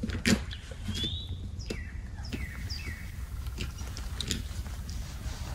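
Scattered short bird calls: sharp clucking notes and brief high chirps, over a low steady rumble of wind.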